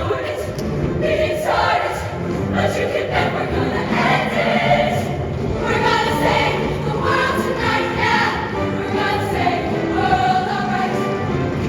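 Show choir singing in full voice over a live backing band, with steady percussion hits.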